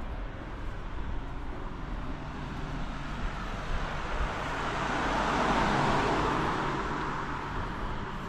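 A car driving past on the street, its tyre and engine noise swelling to a peak a little past the middle and then fading away.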